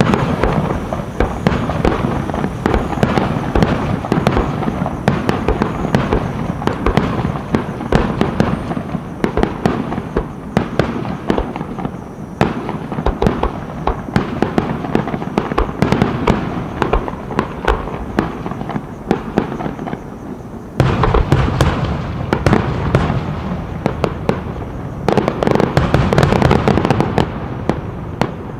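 Fireworks display: a continuous barrage of bangs and crackling, with heavier, deeper volleys about twenty seconds in and again a few seconds before the end.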